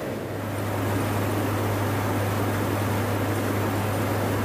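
Steady engine and airflow noise of an aircraft in flight, heard from aboard the refueling aircraft. It is a rushing drone, with a low steady hum that sets in just after the start.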